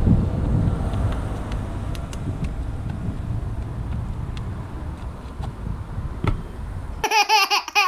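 Roadside outdoor ambience: a steady low rumble of wind and road traffic, with a few faint clicks. Near the end a brief high, wavering sound effect cuts in.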